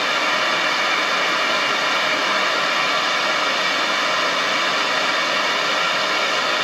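Propane torch burning with a steady hiss, its trigger locked on, while a steel awl is held in the flame to heat it.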